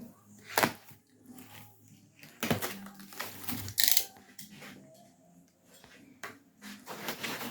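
Packaging and parts being handled as a diesel heater kit is unpacked: a few separate rustles, crinkles and light knocks, one sharper crinkle about halfway through.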